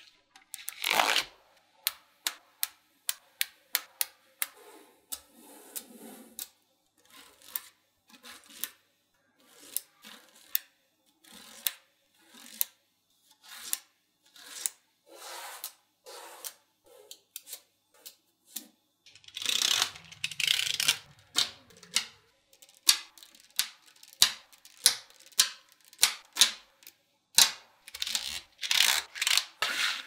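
Small magnetic balls clicking and snapping against each other as rows are set in place, with separate sharp clicks throughout. Longer bursts of rapid rattling clicks come about two-thirds of the way through and again near the end.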